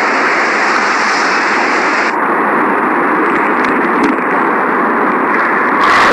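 Loud, steady rushing noise, its high hiss dropping away about two seconds in, with a ringing tone coming in near the end.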